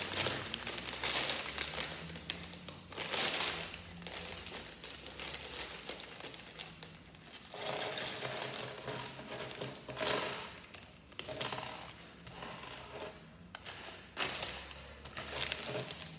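A clear plastic parts bag crinkling and rustling as it is opened and handled, with light clicks of small Lego pieces.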